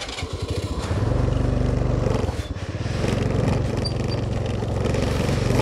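Honda Activa 3G scooter's small single-cylinder four-stroke engine just started. It runs unevenly for about a second, then settles into a steady idle.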